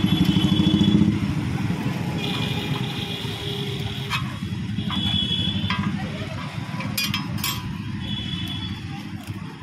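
Busy street traffic, motorcycle engines running close by with short horn tones several times. A few sharp clicks of a steel spatula and spoon against the iron griddle come about the middle.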